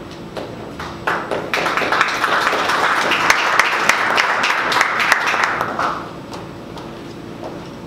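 Audience applauding: the clapping starts about a second in, builds, and dies away about six seconds in.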